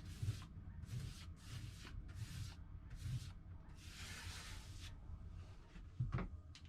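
Paintbrush strokes swishing across a surface, about one and a half strokes a second, stopping about five seconds in. A short knock follows near the end.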